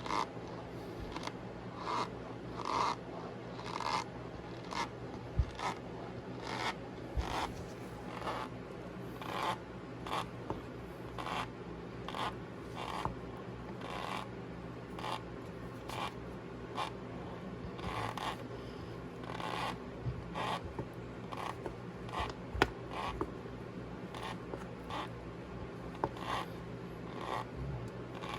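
Cornstarch powder squeaking as it is pressed and squeezed: a steady run of short squeaks, about one or two a second.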